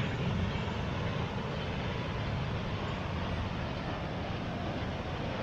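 Fast, turbulent water rushing steadily down a narrow concrete channel, a constant deep rushing noise.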